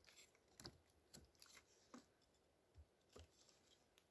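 Faint, irregular scrapes and clicks of a Becker BK9 Bowie knife's 1095 Cro-Van carbon-steel blade shaving a wooden stick, several short strokes.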